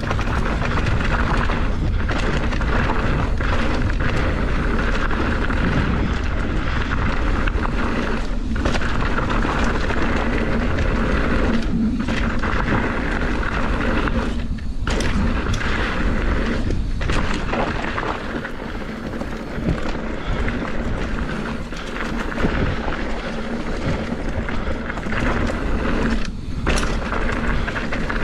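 Wind rushing over the microphone of a bike-mounted or helmet camera on a fast mountain-bike descent, mixed with tyres rolling over a dirt trail; a steady rumble with a few brief lulls.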